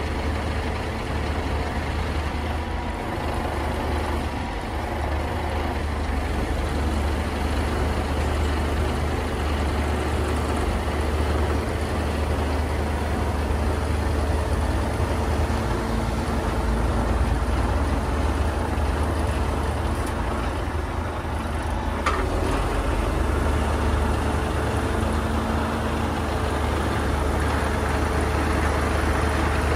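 Scania G360 truck's diesel engine running steadily, driving the hydraulic pump while the HMF loader crane unfolds and telescopes its boom out, with a faint steady hydraulic whine. One short click about 22 seconds in.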